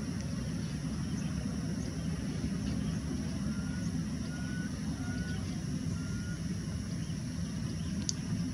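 A steady low rumble, with four short faint whistled notes, each slightly rising, spaced about a second apart midway through, and a single sharp click near the end.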